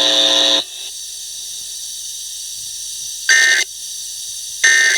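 A loud buzzing tone cuts off about half a second in; then, over a faint hiss, come two short warbling data bursts about 1.3 seconds apart: the Emergency Alert System end-of-message tones that close the test.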